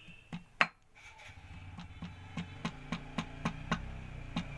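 Oil seal being tapped into its bore in a Bajaj Maxima Z auto-rickshaw engine casing: a steady series of light sharp taps, about three or four a second, with one louder strike just after half a second in. A low steady hum sits underneath from about a second in.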